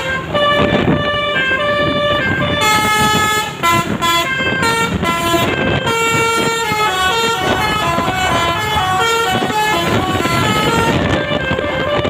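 Telolet basuri melodic bus horn on the Bris Trans coach "Casper", playing a quick tune of stepped notes, often two or three sounding together.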